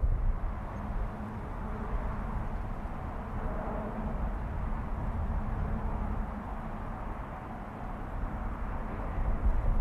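Chichibu Railway train running along the line, a steady low rumble with a faint hum.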